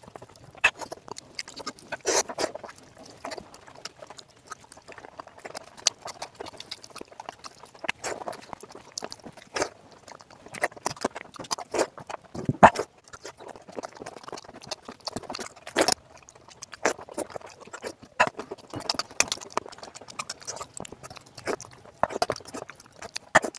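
Close-up eating sounds: chewing and lip smacking on mouthfuls of curry and rice eaten by hand, an irregular run of wet clicks and smacks.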